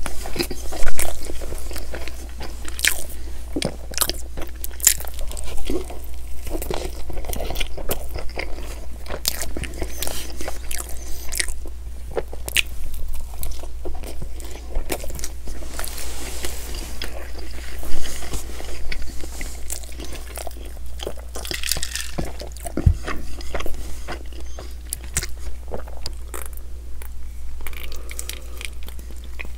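Close-miked chewing and biting of a McMuffin breakfast sandwich: irregular wet mouth smacks and lip clicks, with two louder bites, one about a second in and one about eighteen seconds in. A steady low hum runs underneath.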